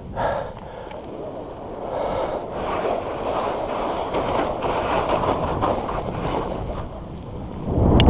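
Skis hissing and scraping through powder snow on a fast descent. Near the end a loud, deep rumble of wind on the microphone comes in as speed picks up.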